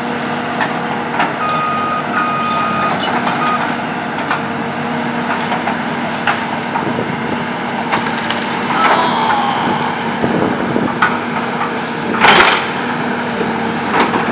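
Kobelco hydraulic excavator running steadily while its bucket breaks the building's wooden beams, with repeated cracks and knocks of splintering wood. There is a brief high squeal a few seconds in, and the loudest crash comes about twelve seconds in.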